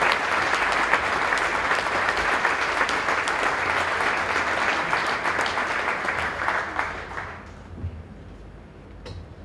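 Audience applauding, the clapping fading away about seven seconds in.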